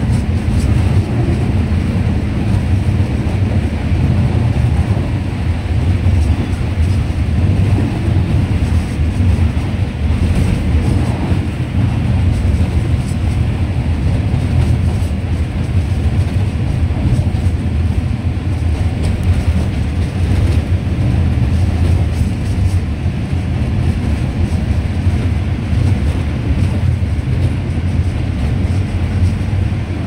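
Alishan Forest Railway passenger carriage running along the line, a steady low rumble heard from inside the car.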